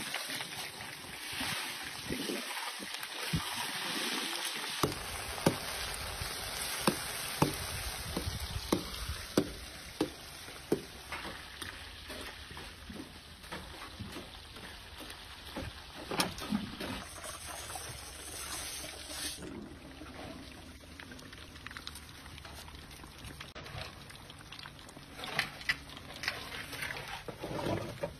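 Hot oil sizzling and bubbling in an iron kadhai as food deep-fries, with sharp clicks of metal utensils against the pan, about one a second through the first half.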